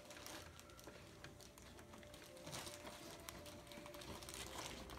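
Faint, scattered light clicks and taps of hard plastic playset parts being handled and fitted together.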